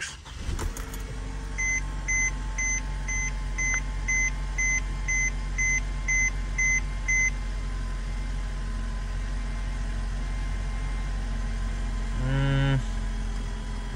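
A 2013 Mercedes-Benz C250's engine running steadily at idle while the car's warning chime beeps twelve times, about two a second, over the first half. A brief low hum sounds near the end.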